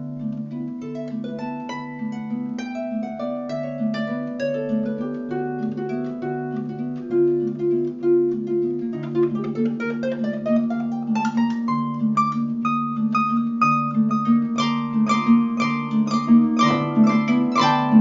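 Harp playing: plucked notes over an evenly repeating low bass figure, with a quick rising run of notes in the middle. It grows louder and fuller, with dense arpeggiated chords in the last few seconds.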